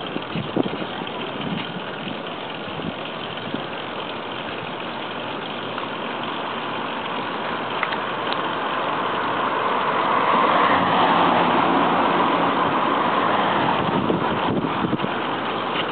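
Street traffic and road noise heard while riding a bicycle along a city bike lane, with a few rattling clicks near the start. A motor vehicle goes by, getting louder from about nine seconds in and loudest around eleven to thirteen seconds.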